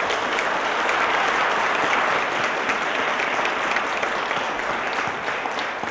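Audience applause, a large roomful of people clapping steadily after a talk, tailing off near the end.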